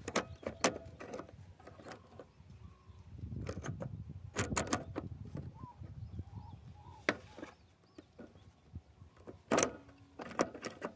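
Irregular sharp clicks and knocks from a single-phase pump starter's contactor being worked by hand, its plastic contact carrier pressed in and released. A low rumble of handling comes in the middle, and the loudest click is near the end.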